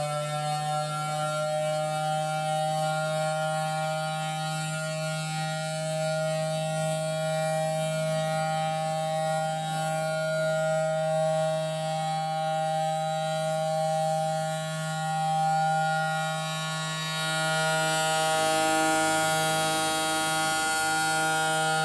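Federal Signal Thunderbolt 1000T siren sounding its attack signal: a loud, steady pitched howl held at high pitch, swelling and fading as the rotating horn turns, with the pitch starting to fall at the very end.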